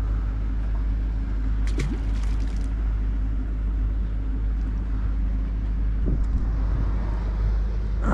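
Steady low drone of an engine idling, unchanging throughout, with a few faint brief sounds over it.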